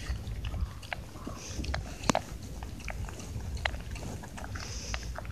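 Shiba Inu eating dry dog-food kibble from a bowl: irregular crunching and clicking bites, the loudest about two seconds in.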